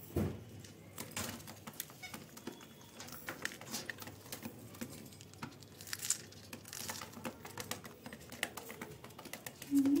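Alexandrine parakeet eating from a food bowl: many quick, irregular clicks and taps of its beak picking at rice and against the bowl. There is a soft knock right at the start.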